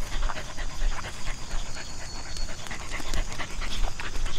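A dog panting.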